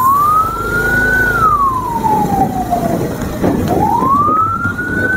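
Vehicle siren wailing, its pitch sweeping up and then slowly down twice, over the rumble of motorcycle and traffic engines.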